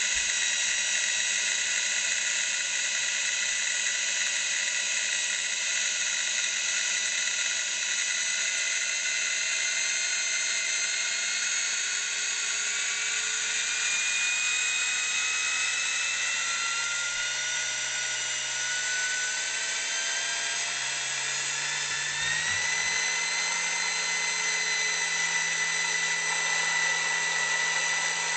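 High-speed precision drill press running free with nothing in the chuck: a steady high whine from the motor and spindle. From about twelve seconds in, the whine climbs in pitch for about ten seconds as the spindle speeds up, then holds steady at the higher speed.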